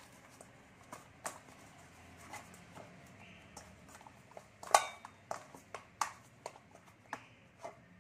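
Hands working a lump of dough in a stainless-steel bowl: irregular knocks and clinks against the metal, the loudest a little under five seconds in, then a quicker run of taps near the end.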